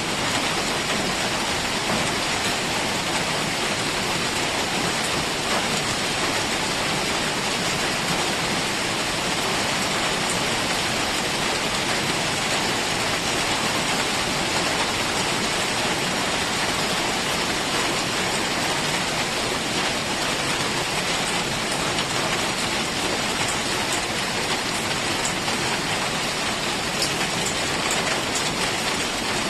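Heavy rain falling steadily on forest foliage and ground, an even hiss of downpour with a few distinct drops.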